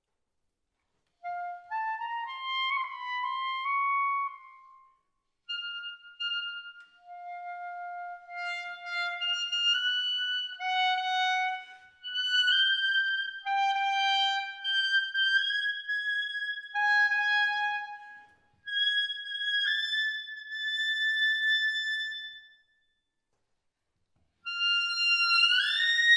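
Solo clarinet playing an unaccompanied cadenza in short phrases separated by pauses, the line climbing higher, then sweeping up in a glissando to a high held note near the end.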